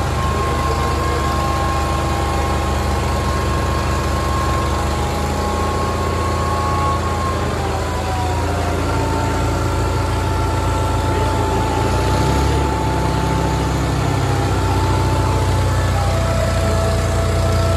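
Two diesel tractors, a Kubota MU5501 and a New Holland 3600, running hard under full load as they pull against each other in a tug-of-war. A low engine drone has a thin high whine over it that drops in pitch about seven seconds in, and the engine note shifts again around twelve seconds in.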